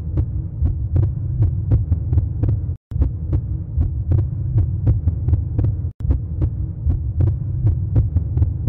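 Intro soundtrack: a low, pulsing bass throb with sharp ticks about three or four times a second, cutting out briefly twice.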